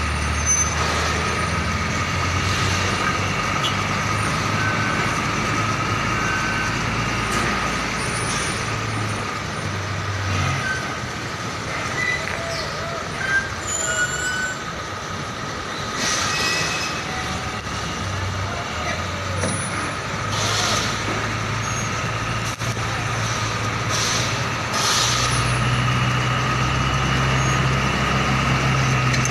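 Diesel engines of container trucks running at low speed as they maneuver, with a steady high whine and a few short air-brake hisses. The engine note rises and grows louder about 25 seconds in.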